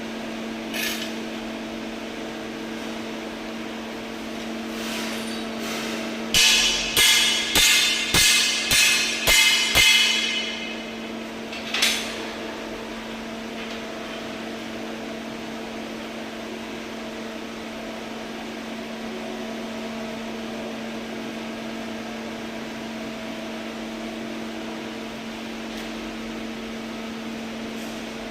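A hammer striking metal seven times, about two blows a second, with a ringing edge, then once more a couple of seconds later, over a steady electrical hum.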